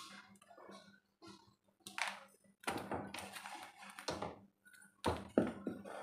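Handling noises from unwinding a hair crimper's power cord: irregular rustling with a few sharp knocks about five seconds in.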